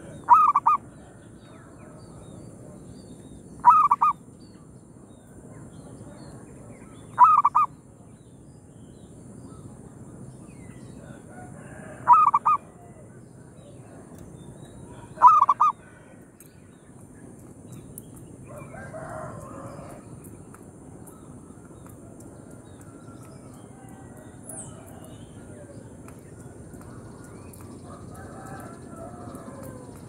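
Zebra dove (perkutut) cooing: five short, pulsed calls of about half a second each, a few seconds apart, in the first half, then only fainter background sounds.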